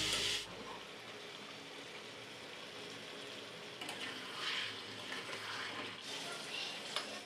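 Faint sizzling of egg curry masala in a steel kadai as it is stirred with a spatula, with a few brief hissy swells as water is poured into the hot pan in the second half.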